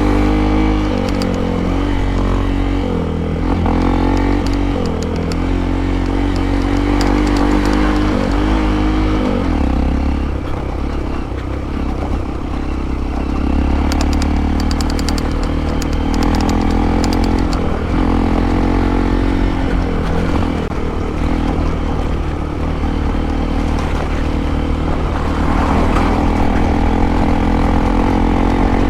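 Motorcycle engine running under load off-road, its pitch rising and falling repeatedly as the throttle opens and closes, over a steady low rumble. A spell of rattling clicks comes about halfway through.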